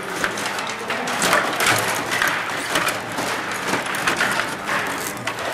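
Stiga table hockey game in play: rapid, irregular clicking and clacking of the rods, plastic players and puck against the rink and boards.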